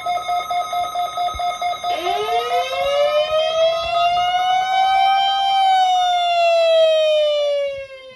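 Emergency alert tones: a steady multi-tone alarm with a rapidly pulsing low note. About two seconds in, a siren winds up in pitch, peaks around the middle, then slowly winds down and fades near the end.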